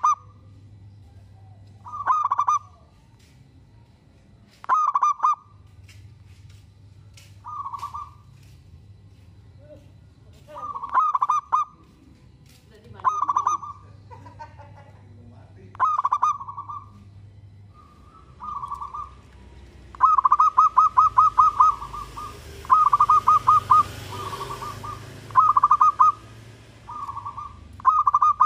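Zebra dove (perkutut) cooing: short phrases of quick staccato coos repeated every two to three seconds, some phrases fainter than others. About twenty seconds in the phrases run longer and faster, a rapid string of coos.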